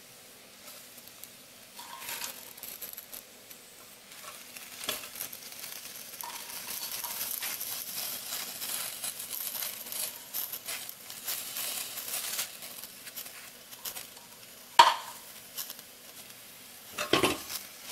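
Rice and dal frying with a steady sizzle in an open aluminium pressure cooker as handfuls of spinach leaves are dropped in, with small scattered clicks. One sharp knock about fifteen seconds in and a few more knocks near the end.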